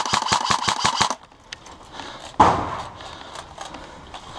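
Airsoft gun firing a fully automatic burst, a rapid even rattle of about ten shots a second that stops about a second in. About halfway through comes a single loud thump, followed by a few faint ticks.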